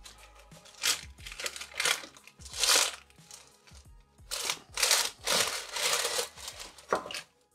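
Baking paper crinkling and rustling in irregular bursts as it is dragged, with the pie on it, out of a metal baking tray onto a wooden board. The rustling stops shortly before the end.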